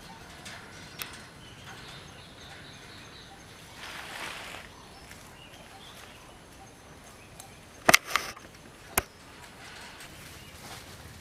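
Quiet outdoor ambience with a soft rustle about four seconds in, then a quick cluster of sharp clicks about eight seconds in and a single click a second later.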